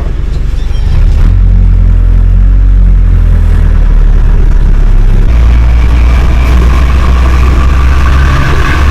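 Vehicle engine running loudly, heard from on board. Its low, steady note steps up about a second in and shifts again around five seconds, as the vehicle changes speed.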